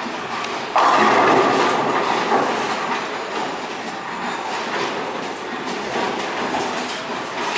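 Bowling ball striking the pins about a second in: a sudden loud crash that trails off into pin clatter, over the rolling rumble of balls and lane machinery.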